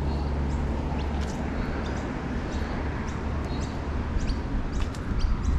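Small birds chirping in short, high calls, several a second, over a steady low rumble.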